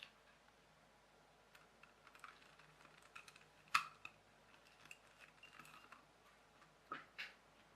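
Rubik's Cube layers being turned by hand: an irregular run of small plastic clicks and clacks, with a sharper clack near the middle and two more near the end.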